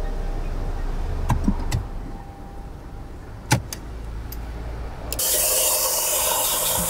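Steady low hum inside an Audi A4 B8's cabin, with a few sharp clicks of dashboard buttons. About five seconds in, a loud, even rubbing hiss begins as a brush sweeps the dashboard air vents.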